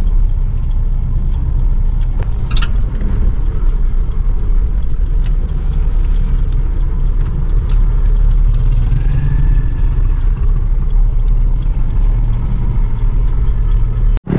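Car driving slowly, heard from inside the cabin: a steady low rumble of engine and road noise with a few light clicks.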